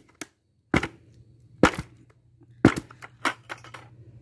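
A 5-gallon plastic bucket of sugar being shaken and knocked down to settle the sugar: about four sharp knocks, roughly a second apart.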